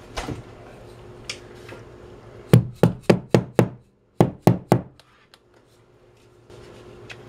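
Orange rubber mallet tapping wall anchors into holes drilled in the wall: a run of five quick knocks, a short pause, then four more.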